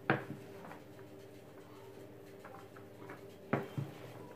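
Spoon stirring bulgur salad in a large plastic bowl: a soft scraping of the grains with a few knocks of the spoon against the bowl, one right at the start and two close together about three and a half seconds in.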